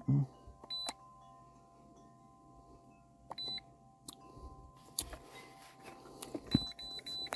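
Short, high electronic beeps from a handheld OBD-II code reader as its buttons are pressed: single beeps about a second in and after three seconds, then three quick beeps near the end. Knocks and handling thumps come in between, the loudest at the start and about six and a half seconds in.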